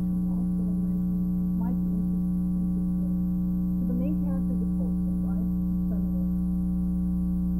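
Steady electrical mains hum, a constant low drone made of several even tones, that covers the recording, with a woman's voice faint underneath it.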